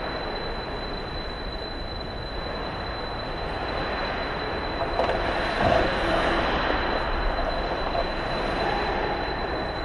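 Ice hockey play heard from the rink glass behind the goal: a steady scraping of skates on ice, with stick and puck noise, and a thump about five and a half seconds in.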